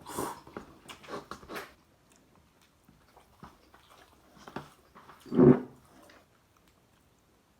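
A person eating ramen noodles close to the microphone: a quick run of wet chewing and slurping sounds in the first two seconds, a few more scattered ones, then one louder, lower mouth sound about five and a half seconds in.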